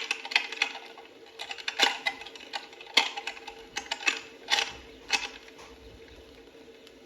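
A run of irregular sharp clicks and clacks, as of small hard objects knocking together, over a steady low hum. The clicks die away about five seconds in.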